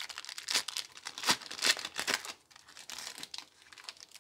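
Foil Pokémon booster pack wrapper being torn open and crinkled as it is pulled apart: a run of irregular sharp crackles, loudest in the first half and thinning out near the end.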